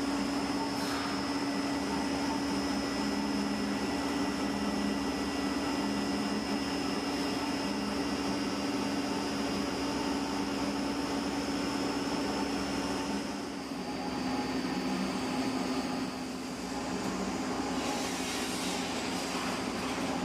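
Steady hum of factory machinery with a constant low drone and a thin high whine, shifting slightly in tone about two-thirds of the way through.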